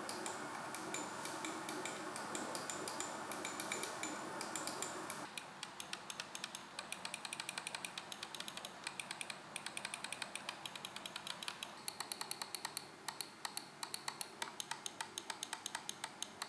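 Gaming mouse button switches clicked over and over to compare their sound: the stock Omron switch and the replacement Kailh GM 8.0 Blue and Kailh White Sword switches. The clicking changes character about five seconds in and again about twelve seconds in. It starts as a dense, rapid run and turns into evenly spaced, sharp clicks about four or five a second.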